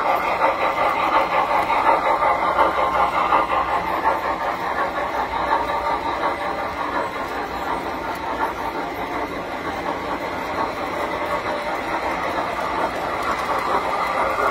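Tinplate model trains running on metal track: a steady rattling rumble of wheels and motors as a toy steam locomotive and its lit passenger cars pass close by. It eases off a little midway and builds again near the end.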